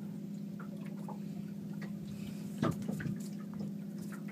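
Boat motor running steadily at trolling speed, a low even hum, with faint ticks and light water sounds. There is a brief bump about two and a half seconds in.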